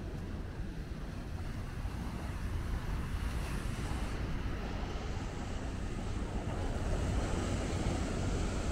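Steady seafront wind and surf noise with a deep rumble from wind on the microphone, growing slightly louder near the end.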